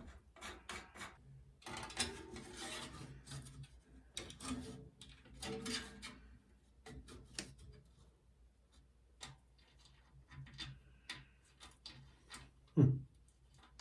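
Irregular light clicks and scraping of small metal parts being fitted by hand onto a bicycle rear wheel axle, with a washer and nut going on. A brief low voice sound comes near the end.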